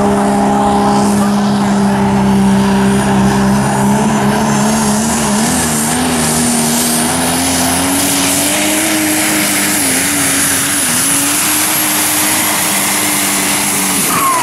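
Super Stock diesel pulling truck's engine running at full throttle under the load of the sled, its pitch climbing as the pull goes on and wavering briefly near the end, with a high turbo whine rising over it.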